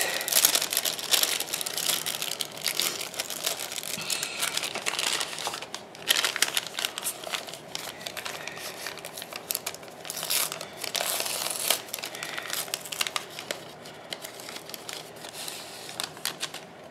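Packaging being handled and crinkled: translucent plastic sleeves of sticker sheets and a paper gift bag rustle and crackle in irregular bursts, easing off near the end.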